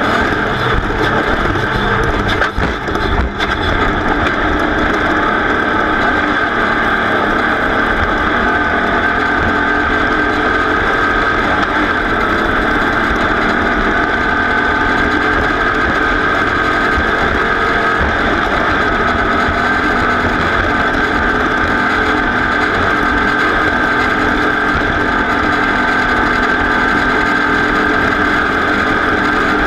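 A race vehicle's engine running hard at a nearly steady pitch, with a couple of brief knocks about two to three seconds in.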